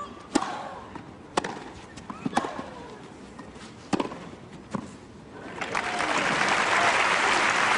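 Tennis rally: a racket strikes the ball about five times, roughly a second apart, starting with the serve. From about six seconds in, the crowd applauds as the point ends.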